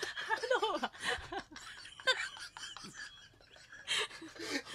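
Radio presenters laughing uncontrollably, caught in a giggling fit they cannot stop. The laughs are high and wavering for the first second, then come as breathy, gasping bursts around two and four seconds in, with a quieter stretch between.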